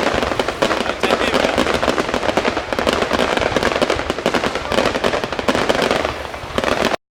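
Fireworks display going off in a dense, continuous barrage of rapid bangs and crackling, cutting off suddenly near the end.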